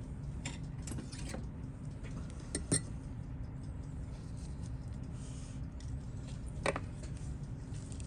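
Small steel watchmaker's tools clicking and tapping against a vintage Seiko chronograph's case parts during teardown: several sharp clicks, the loudest near three seconds in and another near seven, over a steady low hum.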